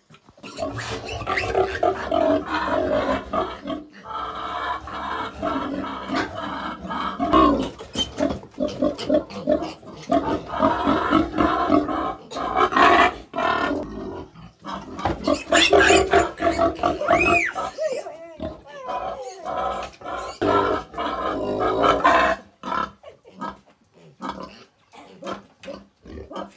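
Piglets squealing loudly and almost without pause as they are caught and handled, dying down near the end.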